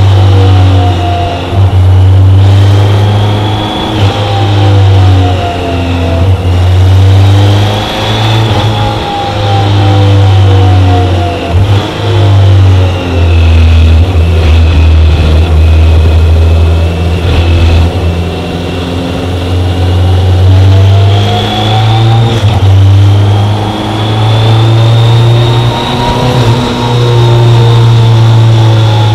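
BMW K1100LT's inline-four engine running on the move, its pitch rising and falling over and over as the throttle opens and closes.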